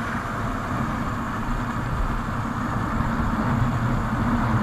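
Hero Super Splendor 125 cc single-cylinder motorcycle cruising along a road, its engine running steadily under wind and road noise on the bike-mounted microphone, growing slightly louder toward the end.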